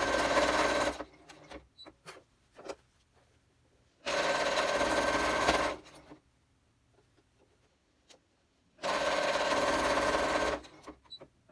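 Electric sewing machine stitching in three short runs of under two seconds each, stopping and starting with small clicks in the pauses between, as the seam is backstitched to lock it.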